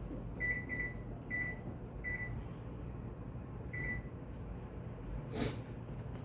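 Five short electronic beeps, all at the same high pitch, irregularly spaced over the first four seconds, followed by a brief noise about five seconds in.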